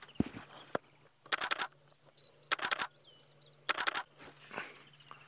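Camera shutter firing in three quick bursts of rapid continuous shots, about a second apart.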